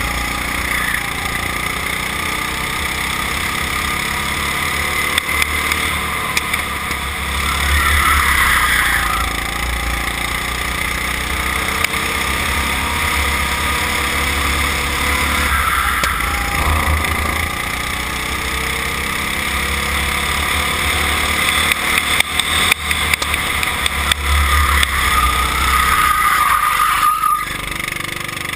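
Go-kart engine running hard at close range, its pitch rising and falling as the kart accelerates out of corners and eases off into them, with a short lift-off near the end.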